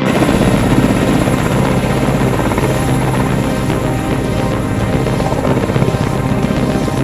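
Helicopter running, its rotor and engine making a steady, fast chop, with background music mixed in.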